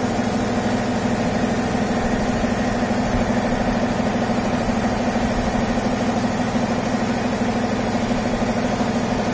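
Engine running steadily at a constant speed, with an even low hum and no change in pitch.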